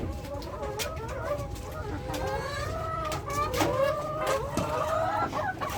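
A flock of laying hens clucking, many overlapping calls at once, with scattered sharp clicks among them.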